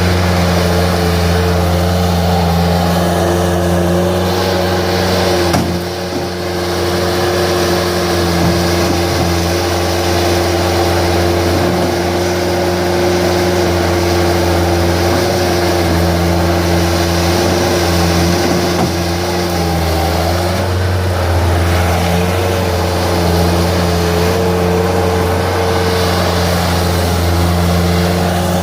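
Bobcat S130 skid steer's diesel engine running at a steady speed, with a brief dip in loudness about six seconds in.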